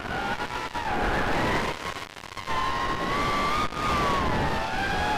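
Racing quadcopter's four Cobra 2206 2100kv brushless motors whining as they spin HQ 4040 tri-blade props, heard from the onboard camera. The pitch rises and falls with the throttle: it drops briefly about two seconds in, climbs to its highest just before four seconds, then sinks near the end.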